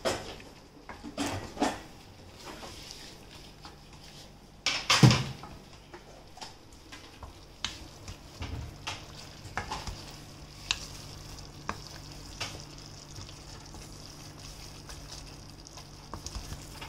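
Wooden spatula stirring fried chicken pieces through thick cornflour sauce in a nonstick pan, with a low sizzle and scattered clicks and scrapes of the spatula against the pan. One louder knock about five seconds in.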